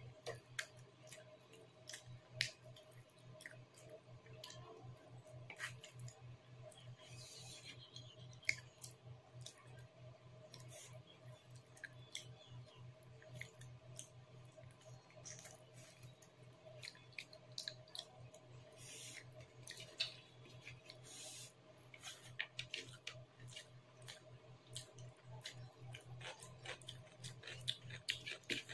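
Close-miked chewing and wet mouth smacks from eating chicken curry and rice by hand, with fingers squishing and mixing rice on the plate. Many short sharp clicks come irregularly over a faint steady low hum.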